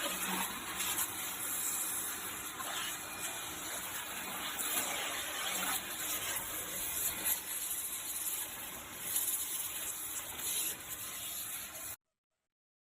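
Jet cleaner spraying water: a steady hissing gush that stops abruptly near the end.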